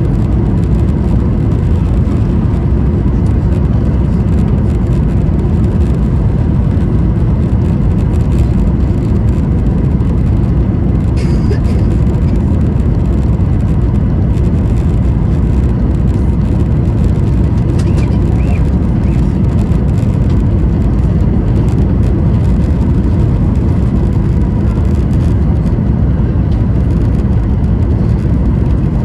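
Boeing 737-800 cabin noise: a steady low rumble of airflow and its CFM56-7B engines heard from inside the cabin, holding level without any change in thrust.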